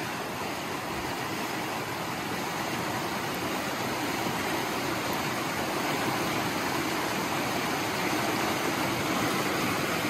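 Shallow creek water rushing steadily over rocks around a plastic gold pan held in the current, growing slightly louder as it goes.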